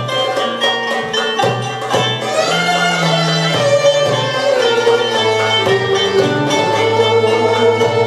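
Turkish art music ensemble playing, violins and plucked string notes together in a steady melodic passage.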